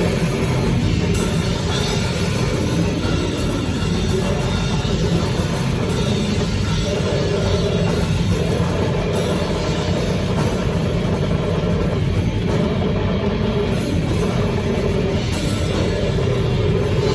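Extreme metal music: a dense, loud, unbroken wall of distorted, noisy guitar and bass over fast, pounding drums.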